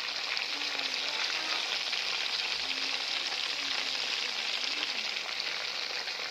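Marinated chicken pieces deep-frying in hot oil: a steady, dense sizzle with fine crackling.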